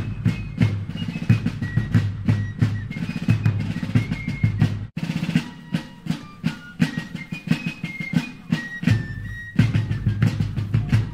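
Background music: an upbeat track with a steady drum beat, a bass line and a high melody line of short notes.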